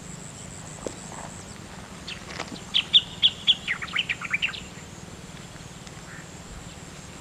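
A bird singing one short phrase about two seconds in: a few clear, high repeated notes, then a quick run of downward-sliding notes, over a faint steady outdoor background.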